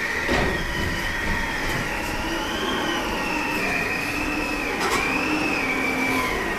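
Howling wind sound effect in a stage play: a whistling tone that wavers slowly up and down over a steady rushing noise.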